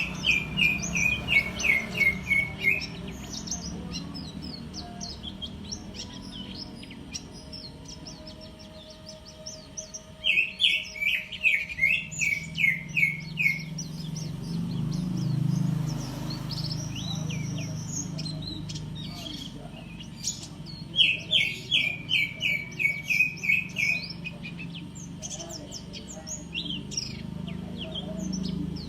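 White-eye (pleci) song: three bouts of a quick run of about ten chirping notes that step down in pitch, each run lasting about three seconds. Fainter high twittering chirps fill the gaps between bouts, over a low steady hum.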